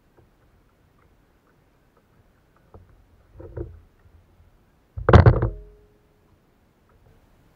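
Knocks and thumps on a plastic sit-on-top kayak hull as the paddle is set down across the boat: a few light knocks about three seconds in, then a louder cluster of sharp knocks around five seconds with a short ringing after it.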